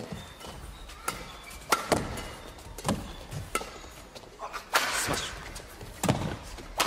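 Badminton rackets striking a shuttlecock back and forth in a doubles rally: a series of sharp hits, roughly one a second.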